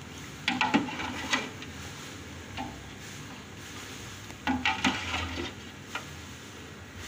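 A metal ladle stirring a pot of bone soup, clinking and scraping against the pot in two short bursts, about half a second in and again about four and a half seconds in, with a single light tap between them and another near the end.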